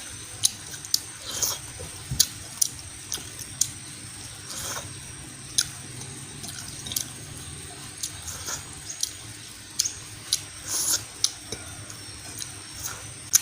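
Close-up wet eating sounds: irregular mouth clicks, lip smacks and soft chewing of a soft fish and noodle dish, a couple of dozen short sharp smacks spread unevenly through the stretch.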